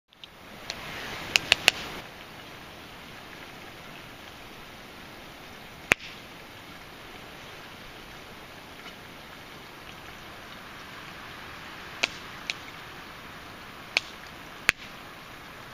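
Wood campfire burning with a steady hiss and sharp crackles and pops: a quick cluster of three about a second and a half in, then single pops every few seconds.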